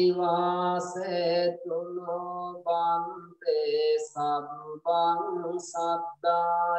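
A Buddhist monk chanting a Pali verse into a microphone in a slow, sung style, held notes broken by short pauses for breath.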